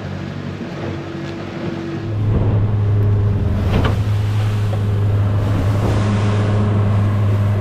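A boat engine running steadily under way. About two seconds in it revs up and gets louder, then holds a steady hum as the boat heads out.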